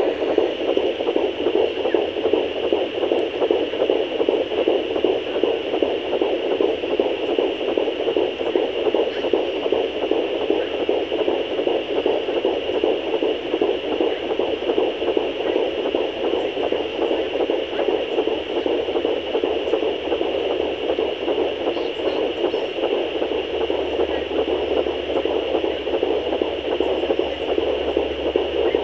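Fetal heartbeat picked up by a handheld pocket fetal doppler at 13 weeks of pregnancy, played through its speaker as a fast pulsing over a steady hiss.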